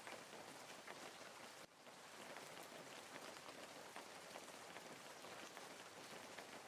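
Faint wood fire crackling in a fireplace: a steady hiss dotted with many small, sharp pops, with a short drop in level just under two seconds in.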